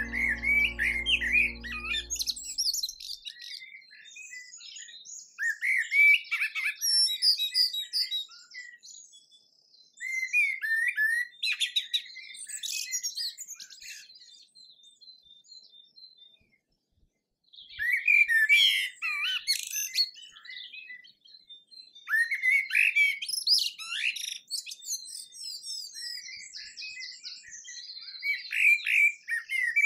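A songbird singing in twittering phrases of two to four seconds, separated by pauses of a second or more. Background music fades out about two seconds in.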